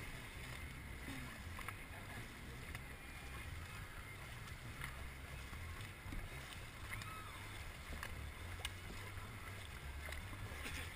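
Water splashing and rushing along a racing dragon boat's hull as the crew paddles, with a low wind rumble on the microphone and a few scattered faint knocks.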